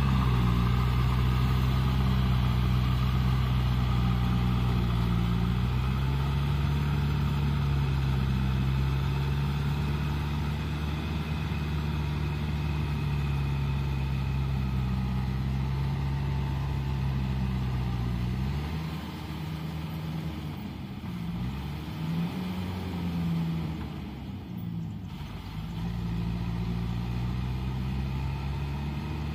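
Kubota tractor's diesel engine running steadily as it pulls a rotary tiller through a flooded, muddy field. About two-thirds of the way through, the engine note wavers and dips for several seconds, then steadies again.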